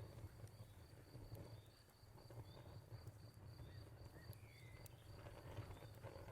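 Crickets chirping in a steady rapid pulse, about five chirps a second, over the low crackle of a wood fire with a few sharp pops. Occasional short bird chirps come in, with one falling whistle around the middle.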